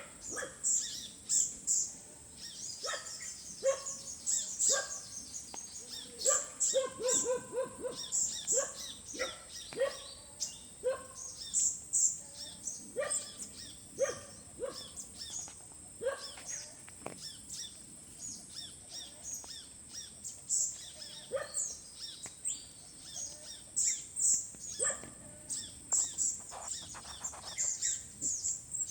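Many birds chirping and calling, short notes in quick succession throughout, some higher and some lower, over a steady high-pitched whine.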